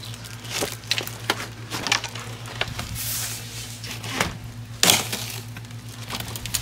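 A large cardboard shipping box being opened: its stiff flaps are pulled apart and the lid is scraped and lifted, with a run of crackles and knocks. There is a louder knock about five seconds in.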